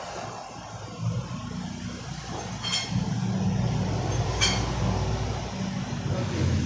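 Low engine rumble of a motor vehicle that builds about a second in and grows louder, with two sharp ringing clinks of metal on metal.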